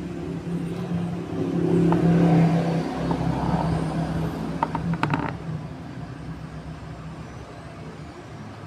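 A motor vehicle engine running nearby, swelling about two seconds in and then slowly fading, with a few light clicks around the middle.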